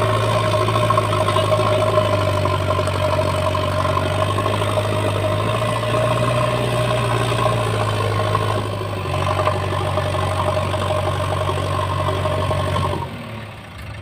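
JCB 3DX backhoe loader's diesel engine running steadily under load while its backhoe arm hauls a trailer stuck in sand. The engine sound drops away sharply about a second before the end.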